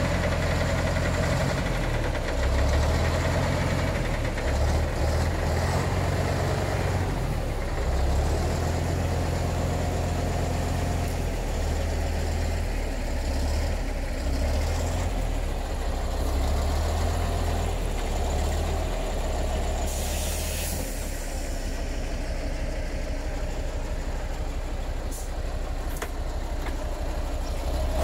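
Heavy diesel engine of a six-wheel Tatra dump truck running under load while the truck is stuck in soft mud and manure. Its pitch rises and falls in steps during the first half, then holds steadier. A brief hiss comes about two-thirds of the way through.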